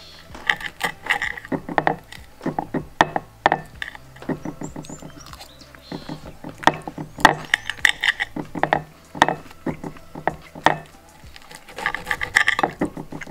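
A steak knife and fork cutting liver and kidneys on a white ceramic plate, with repeated irregular scrapes and clinks of the cutlery against the plate.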